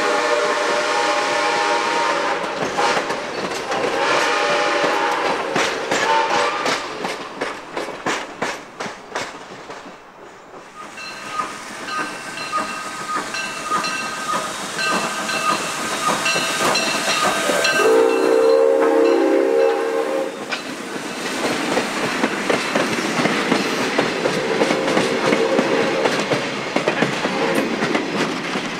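Steam excursion train passing: its steam whistle blows in the first few seconds, the wheels click over the rail joints, and a bell rings repeatedly before a loud whistle blast about 18 seconds in. Near the end the passenger cars roll by with a steady clatter.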